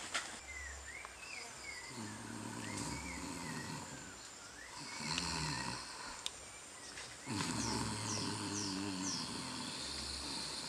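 A man snoring: two long, low, rasping snores, starting about two and about seven seconds in. Birds chirp in the background.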